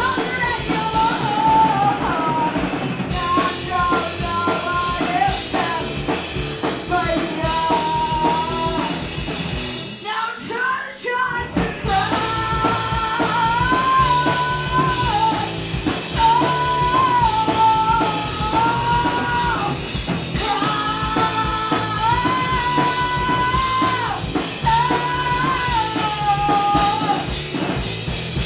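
Punk rock band playing live: distorted electric guitar, bass guitar and drum kit under a sung lead vocal. About ten seconds in, the band briefly cuts out for about two seconds, then comes back in.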